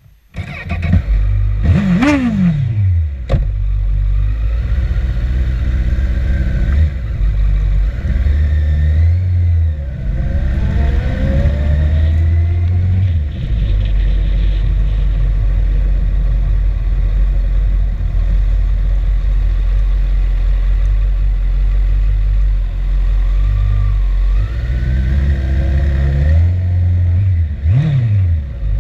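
Motorcycle engine starting about half a second in and revved once, then riding off and accelerating through the gears with rising engine pitch. Another quick rev comes near the end.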